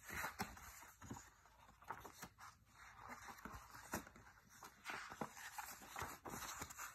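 Faint rustling and soft taps of paper pages as a picture book is leafed through and handled.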